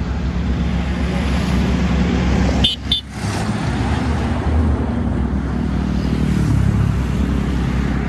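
Road traffic passing close by, heavy trucks among it: a steady low rumble of diesel engines and tyres on the road, with a brief break about three seconds in.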